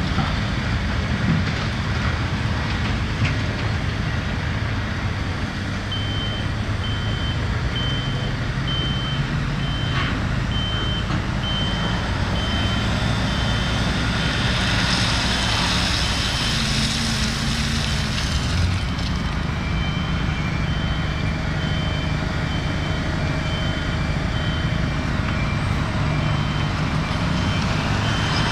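Heavy diesel machinery engine running steadily, with a reversing alarm beeping at an even pace, about once a second, from about six seconds in. About two-thirds of the way through a second, lower-pitched reversing alarm joins it.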